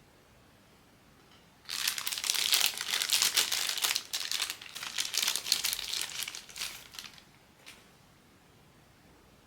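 Plastic blind-box packaging being crinkled and handled in a dense run of crackling for about five seconds, then one short tick near the end.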